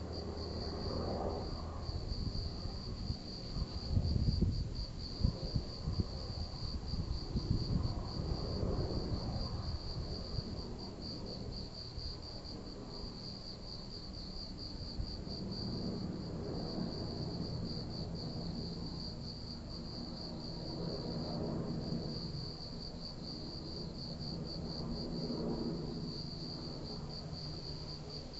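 Insects chirping in a steady, high, finely pulsing trill. Beneath it a low rumble swells and fades, loudest about four to eight seconds in.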